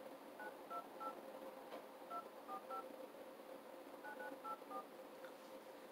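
Telephone keypad touch tones: ten short, faint two-note beeps in groups of three, three and four as a ten-digit phone number is dialed.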